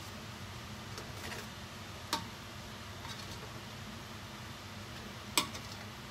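A utensil clinking against a stainless steel pot while bihon rice noodles are stirred and tossed in it: two sharp clinks about three seconds apart, with fainter taps between.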